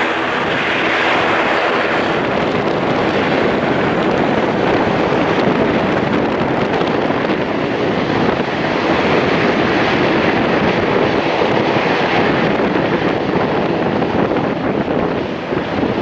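Jet airliner engines giving a loud, steady rushing roar that eases slightly near the end.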